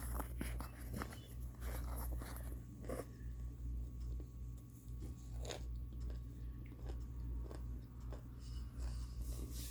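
Crunching and chewing on microwave-baked chunks of cornstarch and baby powder, close to the microphone, with irregular crisp bites clustered in the first three seconds and one more about halfway through.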